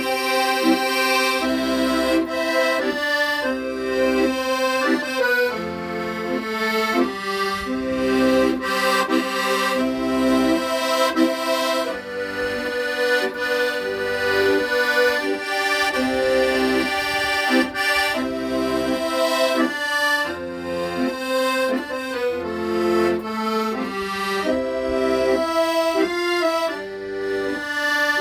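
Accordion playing a melody of held notes over sustained chords, with bass notes sounding underneath.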